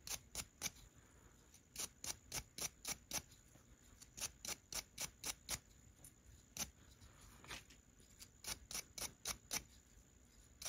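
Faint, short scratchy strokes in quick runs of about four a second, with brief pauses: old grease being cleaned out of the small worm gear on a model locomotive's worm shaft.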